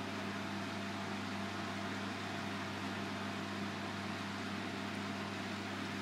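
Silvercrest SKWH 2000 A2 wall-mounted ceramic fan heater running: a steady rush of air from its fan with a low electrical hum underneath, measuring about 53 dB(A) at 1.5 m.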